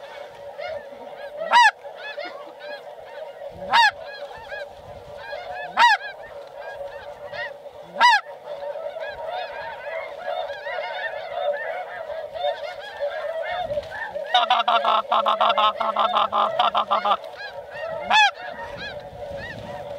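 A large flock of snow geese calling in a dense, continuous chorus of honks. A few louder single honks stand out about every two seconds in the first half and again near the end. From about 14 to 17 seconds there is a stretch of loud, rapid, pulsing calling.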